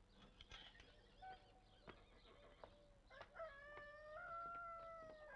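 A rooster crowing once, faintly: one long call of about two seconds, starting a little past the middle and rising slightly in pitch. A few soft clicks and knocks come before it.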